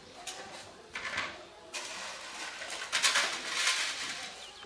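Rustling and light clattering of paper and plastic plates being handled on a table, a short burst early on, then a denser, louder rustle for about two and a half seconds that dies away near the end.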